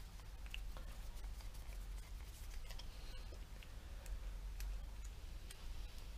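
Faint, scattered small clicks and taps of a screwdriver and small metal parts being handled while a petrol string trimmer's carburettor is taken off, over a low steady hum.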